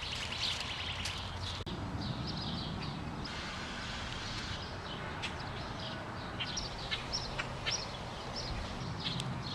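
Outdoor backyard ambience: a small bird chirping in short, repeated high notes, more often in the second half, over a low steady rumble.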